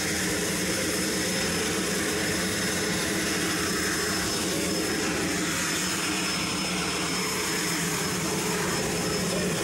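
Cessna Caravan's PT6A turboprop engine running steadily at ground idle: a continuous low drone with a thin, steady high turbine whine over it.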